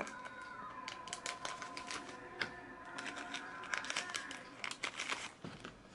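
Hands handling small items and their plastic packaging: irregular light clicks and taps with some crinkling of plastic.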